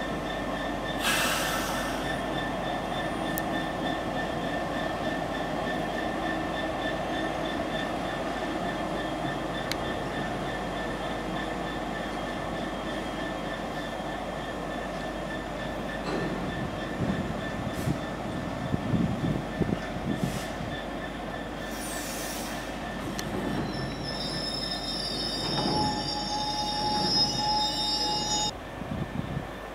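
GB Railfreight Class 66 diesel locomotive hauling a freight train of box wagons past at speed: its diesel engine running under a steady wheel squeal, the wagon wheels knocking in quick clusters about two-thirds of the way through. A higher squeal joins in the last few seconds and cuts off suddenly near the end.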